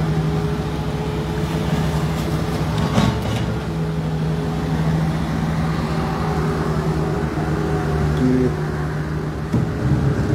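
A large vehicle engine running steadily at a constant pitch, with a short knock about three seconds in.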